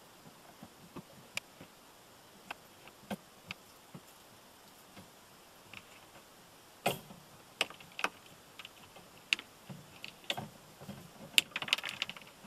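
Scattered plastic clicks and ticks of a new Rain-X wiper blade being worked onto the wiper arm's hook, with a quick run of clicks near the end. Heard from inside the car through the windshield.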